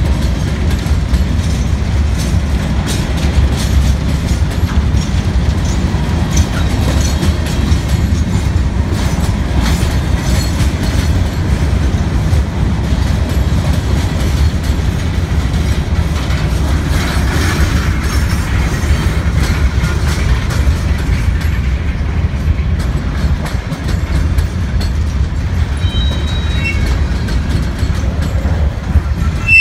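Freight train of open-top hopper cars rolling past close by: a steady heavy rumble of wheels on rail with the clickety-clack of wheels over rail joints. Faint high wheel squeal creeps in near the end.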